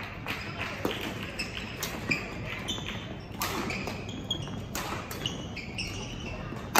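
Badminton rally: sharp, irregular hits of rackets striking the shuttlecock, along with short high squeaks of shoes on the court floor.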